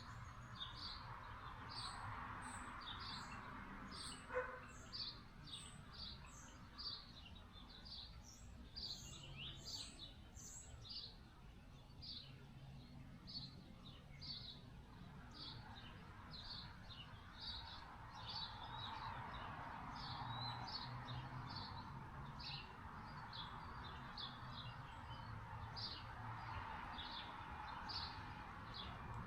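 Small birds chirping: one repeats a short high chirp roughly every second throughout, with higher, quicker notes mixed in during the first half. Beneath them a faint background rush swells and fades, and there is a single click about four seconds in.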